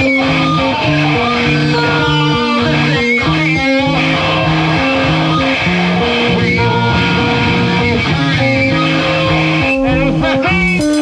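Loud live noise rock from a bass-and-drums duo: a heavily distorted bass guitar plays a repeating riff over busy drumming.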